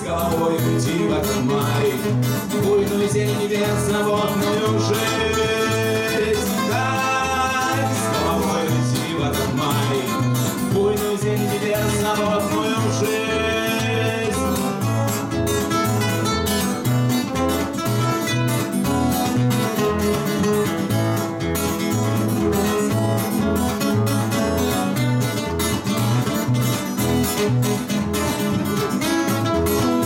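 Two acoustic guitars strummed together in a steady, driving rhythm, with a man singing over them.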